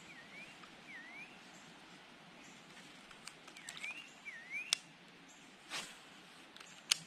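Quiet outdoor background with a bird's repeated short calls, each note dipping then rising in pitch, and a few sharp clicks in the second half, the loudest near the end.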